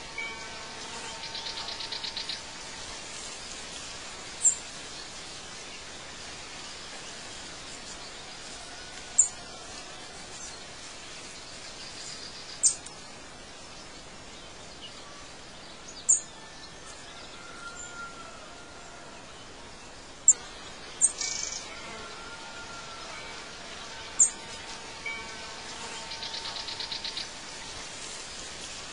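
Birds chirping over a steady hiss of background ambience: a short, high chirp about every three to four seconds, with a buzzy trill about two seconds in and again near the end.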